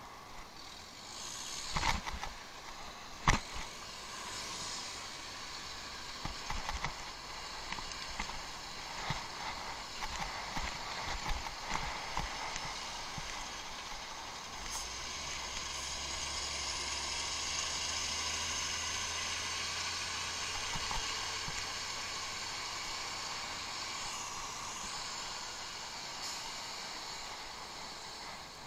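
Bicycle ridden over rough off-road ground, heard through a head-mounted action camera's microphone. Two loud sharp knocks about two and three seconds in, then smaller knocks and rattles, give way about halfway through to a steady rushing noise with a low rumble.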